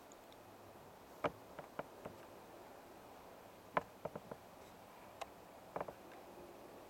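Handling noise from a handheld camera: about ten short, sharp clicks and ticks at irregular intervals over a faint steady hiss.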